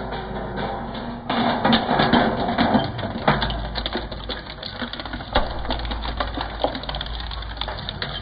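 Twin-shaft shredder's interlocking cutter discs tearing up a thin metal tin: a dense run of crunching and clattering metal over the steady low drone of the shredder's drive. The crunching is heaviest in the first few seconds and thins to scattered clicks toward the end as the tin is drawn through.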